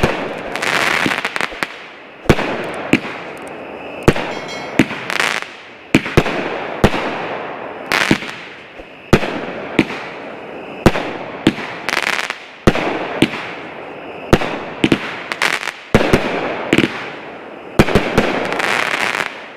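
16-shot, 200-gram firework cake firing: a string of sharp launch reports, about one a second, with hissing and crackling from the shells' effects between the shots.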